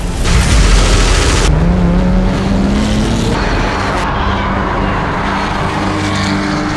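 A loud rush of noise lasting about a second, then a Porsche 911 GT3 R racing car's flat-six engine climbing in pitch as it accelerates and running on at high revs as the car passes.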